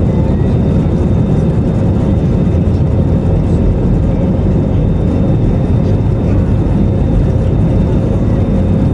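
Airbus A320-214's CFM56-5B turbofan engines at take-off thrust during the take-off roll, heard from inside the cabin over the wing: a loud, steady rush with a deep rumble and a thin steady tone above it.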